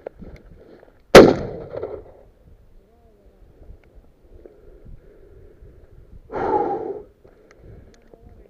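A single shotgun shot from a Huğlu 104A over-and-under, a sharp crack about a second in with a short echoing tail. A softer rush of noise lasting under a second follows near the end.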